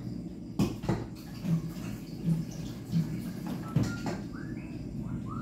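Rice being washed by hand in a metal rice-cooker pot at the sink: water sloshing, with a few sharp knocks of the pot against the sink. A few short rising chirps near the end.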